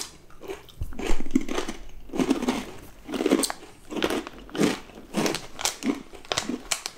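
Crunchy baked cheddar cheese crisps being chewed, a crunch about every half second. A foil-lined snack bag crinkles as it is handled.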